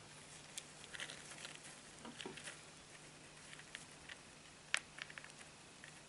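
Syrian hamster rooting and scrabbling in wood-shaving bedding inside a plastic carrier. The sound is faint, scattered rustles and light clicks, with one sharper click after about four and a half seconds.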